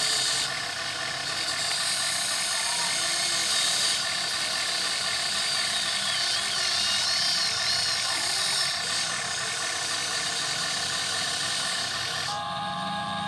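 Electric gear motors of an RC model excavator whirring steadily as it works, with a ratchety gear sound. About a second before the end the sound shifts to a lower, steadier whine.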